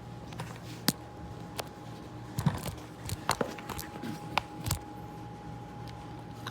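Scattered knocks, taps and clicks of objects being handled and set down, over a faint steady hum.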